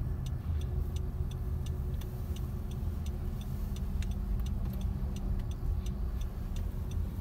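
Car cabin with the engine idling as a steady low hum, and an indicator relay ticking evenly about three times a second.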